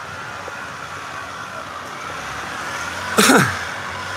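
Steady urban street background noise. About three seconds in, a brief vocal sound, falling in pitch, from a person close to the microphone.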